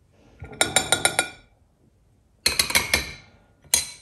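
Metal spoon clinking against ceramic dishes while rice is served: a quick run of about five ringing taps about half a second in, another run of taps about two and a half seconds in, and one more tap near the end.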